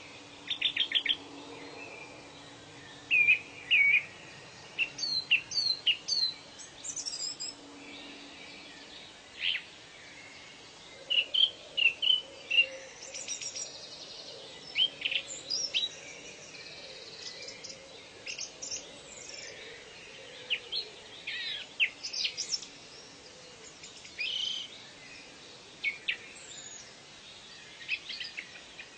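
Several birds calling and chirping, with short whistled notes, rising sweeps and quick rattling trills scattered all through, over a steady background hiss.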